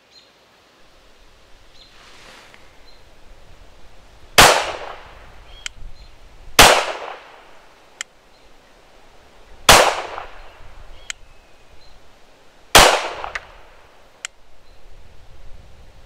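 Canik TTI Combat 9mm pistol firing four single shots, spaced about two to three seconds apart, each a sharp crack with a brief ring-off. Fainter clicks fall between the shots.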